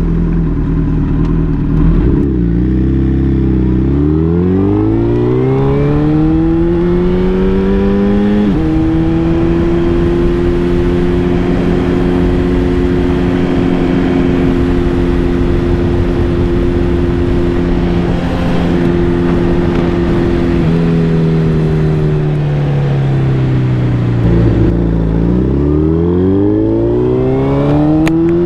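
Suzuki Hayabusa inline-four engine under way, heard from the rider's seat over a steady rush of wind and road noise. The revs climb, drop in one step at an upshift about eight seconds in, and hold steady for a long cruise. They then fall as the bike slows, and climb again near the end as it accelerates.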